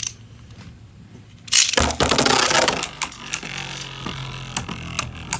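Beyblade Burst spinning tops in a plastic stadium: one top spins with scattered light clicks. About a second and a half in a second top enters with a loud burst of scraping and clatter, lasting about a second. The two tops then spin and scrape, clacking sharply as they collide.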